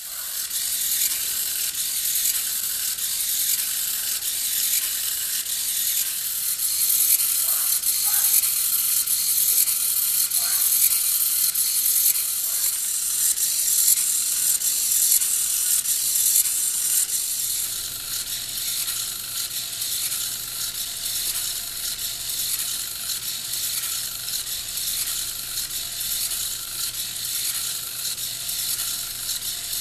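Hobby servo motor's gear train running as it swings the conductor figure's baton arm, a steady fine clicking buzz. It turns a little quieter past the middle, where a low steady hum comes in.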